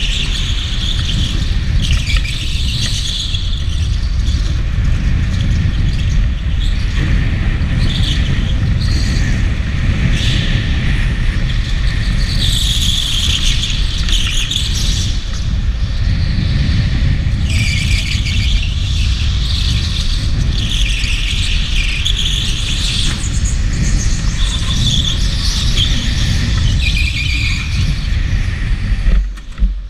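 Electric go-kart's tyres squealing on the smooth indoor track floor in repeated bursts of one to three seconds as the kart slides through corners, over a steady low rumble of the kart rolling at speed.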